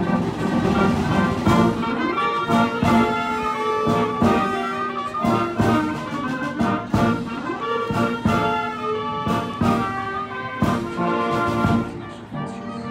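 Military wind band playing a fanfare, led by trumpets, trombones and tubas, with sharp accented hits throughout.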